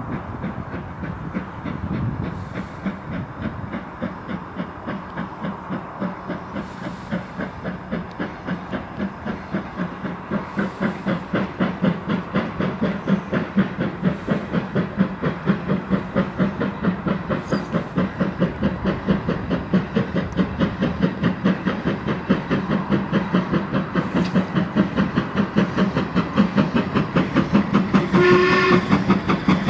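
Steam locomotive hauling a passenger train as it approaches, its exhaust chuffing in a steady rhythm that grows louder as it nears. Near the end it gives one short blast on its whistle.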